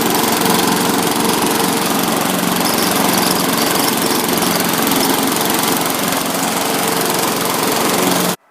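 A small engine running steadily and loudly, cutting off abruptly near the end.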